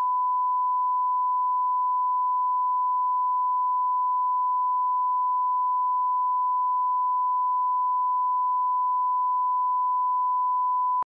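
Steady 1 kHz line-up test tone of a bars-and-tone leader, one unbroken pure pitch that cuts off abruptly about eleven seconds in.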